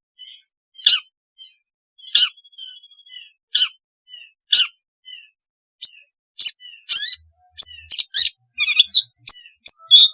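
Long-tailed shrike (cendet) calling: short, harsh calls about every second and a half with softer chirps between them, coming faster and more densely from about six seconds in.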